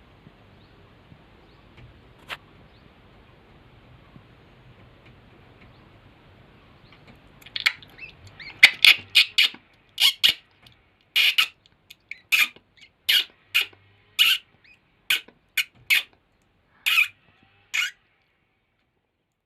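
Baby bird chirping: a run of short, loud, sharp calls that starts about halfway through, roughly one every half second to second.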